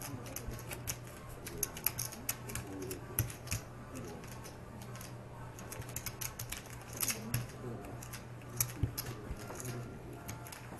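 Irregular clicking and clacking of poker chips being handled and stacked, with cards being gathered and shuffled on the felt table, over a steady low room hum.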